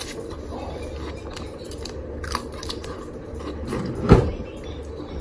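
Small clicking mouth and plastic sounds of eating a freeze pop from its plastic sleeve, over a steady low hum, with one sharp knock about four seconds in.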